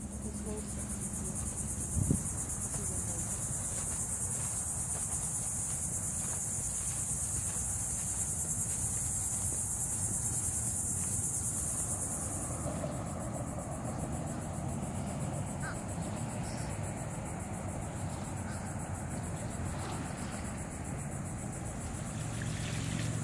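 Insects trilling in a high, rapidly pulsing chorus that drops back about thirteen seconds in, over a steady low rumble. A single short knock about two seconds in.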